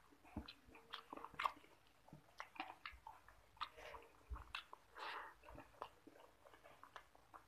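Close-up eating sounds of rice and egg curry eaten by hand: chewing and wet mouth noises, with fingers squishing rice into the curry on the plate. Faint, irregular short clicks.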